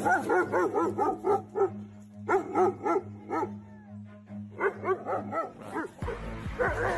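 Dog barking excitedly in three quick volleys of several barks each, about four to five barks a second. A rough, noisy rush follows near the end.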